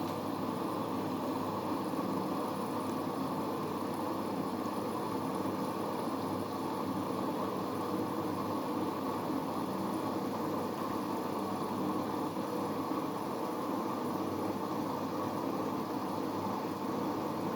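Siemens iQ700 washing machine running with a steady, even noise.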